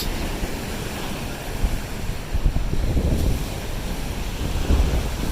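Lake waves breaking and washing on a sandy shore, with gusty wind buffeting the microphone as a low rumble.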